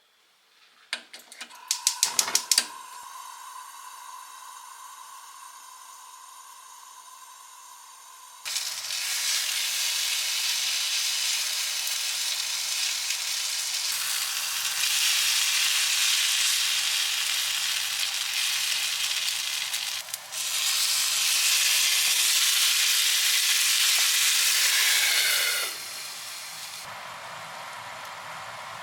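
Food sizzling in a hot frying pan, starting suddenly about eight seconds in, briefly dropping out around twenty seconds, then dying down to a softer sizzle near the end. A quick run of sharp clicks comes about two seconds in.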